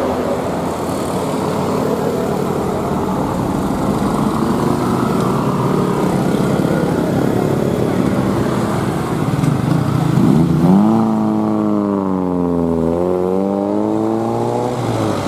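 Roadside traffic noise from a vehicle engine. About ten seconds in, an engine revs up, eases down and revs up again in a smooth rise and fall of pitch.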